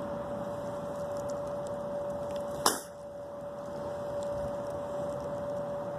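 A steady high hum over a background hiss, broken by a single sharp click a little under three seconds in.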